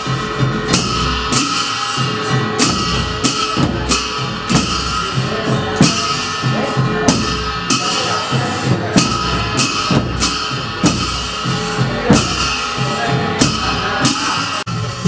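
Festival processional music: drums struck in a steady, even beat with cymbal clashes, under held notes from a wind instrument.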